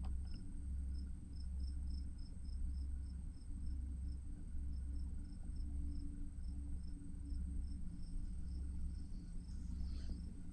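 Cricket chirping steadily, about three short high chirps a second with brief pauses, over a low hum that swells and fades about once a second.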